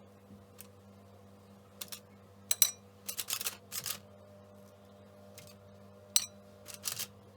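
Kitchen handling sounds: a few sharp clinks of glass or crockery, two of them ringing briefly, with a short stretch of rustling and scraping between, over a low steady hum.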